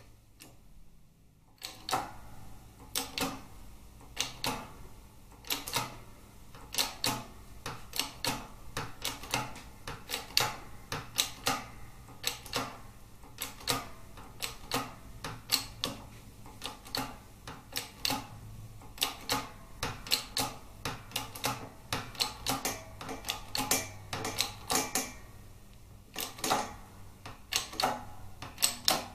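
Shop press working the ram down onto a Harley Twin Cam crankcase half to press the main bearing out: a long run of sharp clicks, several a second in uneven clusters, starting about two seconds in.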